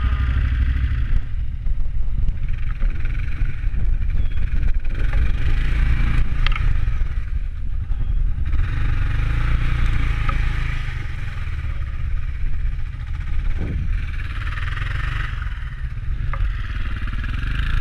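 Dual-sport motorcycle engines idling with a steady low rumble. A hiss rises and falls over it, and a few light knocks come in about six and a half, thirteen and a half, and sixteen seconds in.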